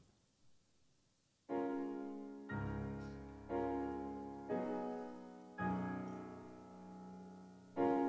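Piano chords starting about a second and a half in: five slow chords struck about a second apart, each left to ring and fade.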